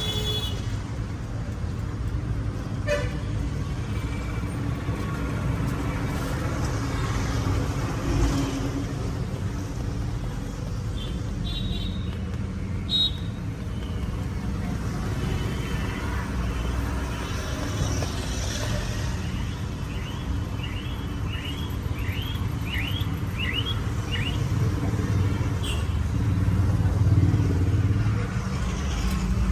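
Street traffic running steadily, with vehicle horns tooting briefly a couple of times and a quick series of short rising chirps about two-thirds of the way through.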